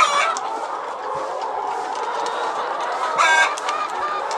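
A flock of laying hens in a poultry house clucking steadily, with one loud, short call from a bird about three seconds in.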